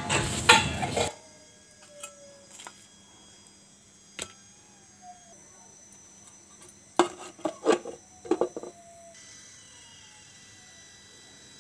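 Steel kitchen utensils clattering and clinking: a burst of clatter right at the start, a few scattered clicks, then a cluster of sharp clinks about seven to nine seconds in, with quiet kitchen room tone between.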